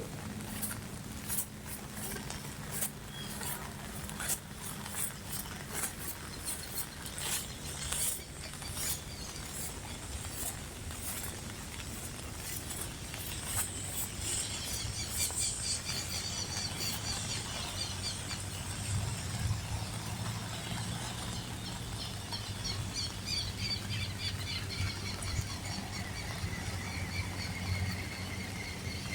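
Rain pattering, with many sharp close drops in the first half. From about halfway, birds chirp over a steady low hum.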